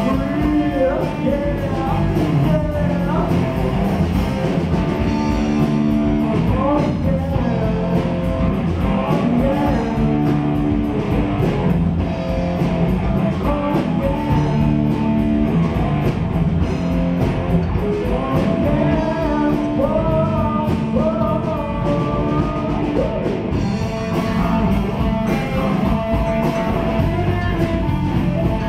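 Live rock band playing: electric guitar and drums in a full, continuous mix.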